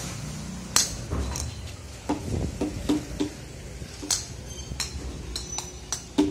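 Light plastic ball and toy cricket bat knocking on a tiled floor: a dozen or so sharp, short knocks and clicks at irregular intervals, some with a brief hollow ring, bunched quickly in the middle.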